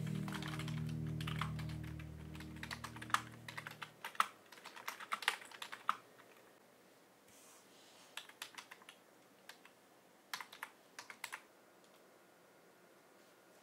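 Typing on a computer keyboard with round retro-style keycaps: quick runs of key clicks for the first several seconds, then after a pause two short bursts of keystrokes. Soft background music fades out over the first four seconds.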